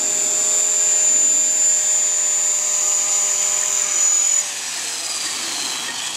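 Align T-Rex 500 electric RC helicopter flying low, its brushless motor and gears giving a steady high whine over the rotor noise. A little over four seconds in, the whine stops and the sound falls in pitch as the motor throttles down and the rotor slows.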